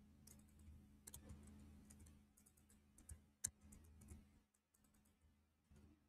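Faint computer keyboard and mouse clicks while text is typed into a form field. There are a few scattered clicks, the loudest about three and a half seconds in, against near silence.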